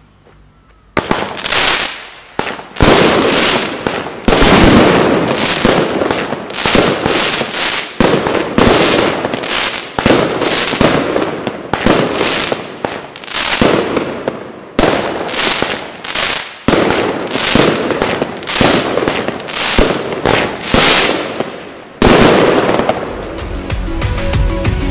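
El Gato Pirotecnia 'Sonora' 25-shot, 20 mm firework cake firing. About two dozen sharp bangs come roughly one a second for about 20 seconds, each with a short fading tail. Background music comes in near the end.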